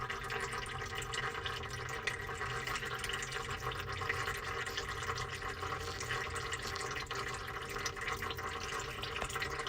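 Automatic transmission fluid running and dripping steadily out of the open tailshaft of the transmission once the driveshaft is removed.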